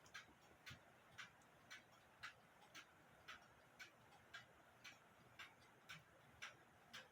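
Faint, steady ticking of an Embee grandfather clock's movement, about two ticks a second.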